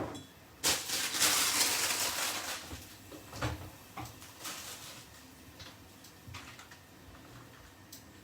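A kitchen tap runs for about two seconds, then dishes knock and clatter as they are washed and put away.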